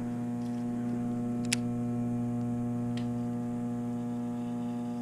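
A steady electrical hum, made of several even tones, runs throughout. A sharp click comes about one and a half seconds in, and a fainter one at about three seconds.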